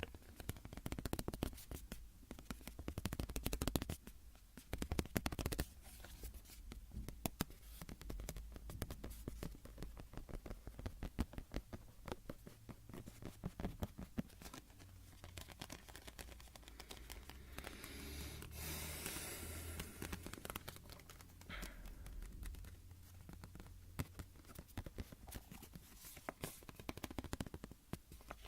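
Close-miked scratching and rapid small clicks of objects being handled and rubbed, with a brief swishing rub about two-thirds of the way through.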